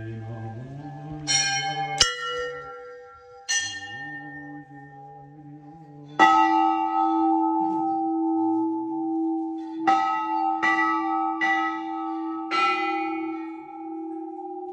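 Hanging brass temple bells struck by hand, about eight strikes, each left ringing on; a deeper, louder bell starts ringing about six seconds in and keeps sounding under the later strikes.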